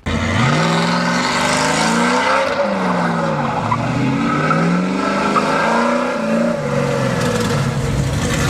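V8 engine of a 1970 Dodge Charger R/T revving up and falling back several times in quick succession, with a steady hiss over it.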